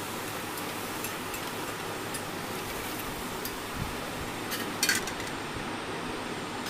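Steady low hiss of cooking on a gas stove, with a short clatter of metal on the steel kadai nearly five seconds in as its lid is set on.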